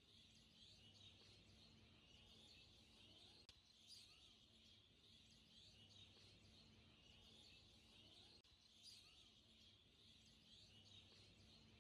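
Near silence, with only a faint high hiss and a faint low hum.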